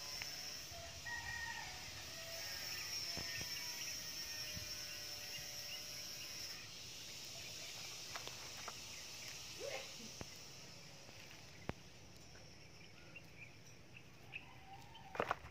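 A rooster crowing a few seconds in, over a steady high-pitched hum, with scattered faint clicks and a sharp knock near the end.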